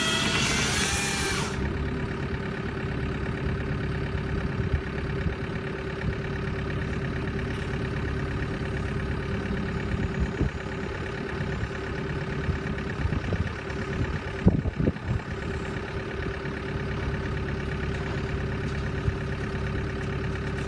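Engine of a tree-cutting machine running steadily. A higher whine cuts off about a second and a half in, and a few sharp knocks come near the middle.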